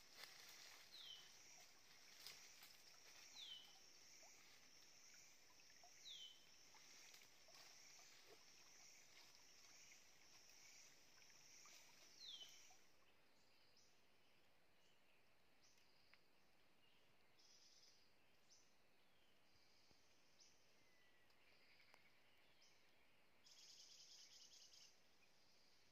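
Faint forest ambience: a bird gives a short, falling whistled note four times in the first half, over a thin, steady high insect drone. The drone drops away about halfway, returning in a few short bursts, the longest near the end.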